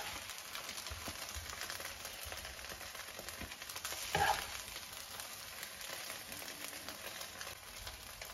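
Stir-fried brown rice sizzling gently in a nonstick frying pan as a metal spoon stirs and scrapes through it, with one louder scrape of the spoon against the pan about four seconds in.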